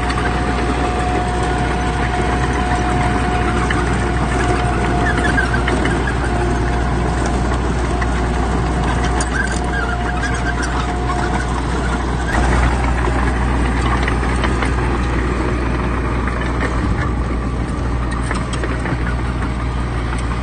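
Diesel engines of heavy earthmoving machinery running steadily, with a steady whine through roughly the first twelve seconds and scattered clanks and knocks throughout.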